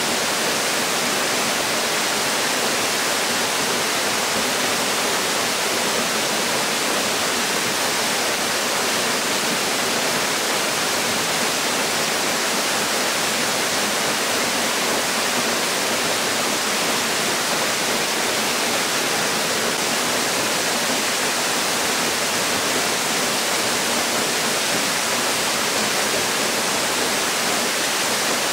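Waterfall crashing steadily into its plunge pool: a continuous, even rush of falling water.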